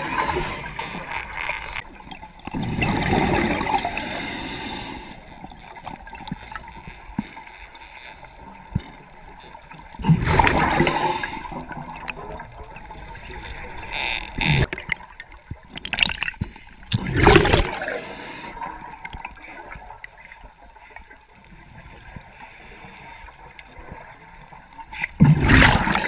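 Scuba diver breathing through a regulator underwater: loud gurgling bursts of exhaled bubbles roughly every seven seconds, with quieter stretches between breaths.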